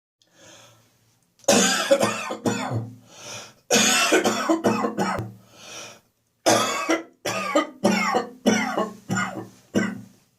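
A person coughing hard from catarrh in the chest and throat: three fits of rapid, loud coughs, each of several hacks, with breaths drawn in between them.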